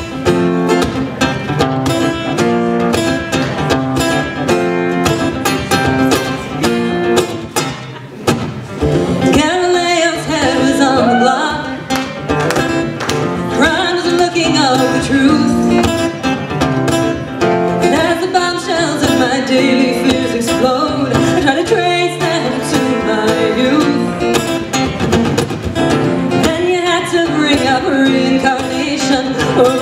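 Acoustic guitar playing a rhythmic accompaniment on its own at first; a woman's singing voice comes in about a third of the way through and carries on over the guitar.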